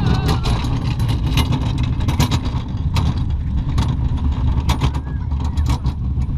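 Roller coaster car running along its steel track: a steady low rumble with fast, irregular rattling and clacking.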